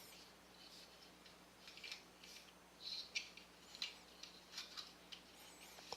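Faint plastic clicks and scrapes of a Titans Return Astrotrain transforming action figure being handled and its parts moved, a scattering of small taps several seconds apart.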